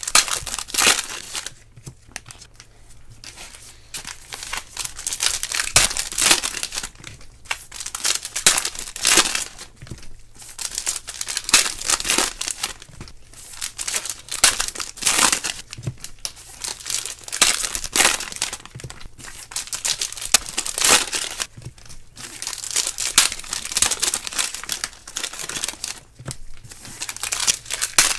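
Gloved hands handling trading cards in plastic sleeves and wrappers during a card break: crinkling and rustling in short bursts every second or two.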